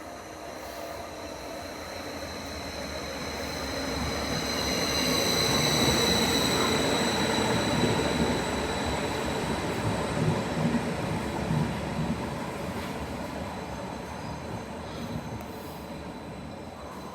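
A train passing through a station, growing louder to a peak about six to eight seconds in and then fading away, with a steady high whine over the rumble.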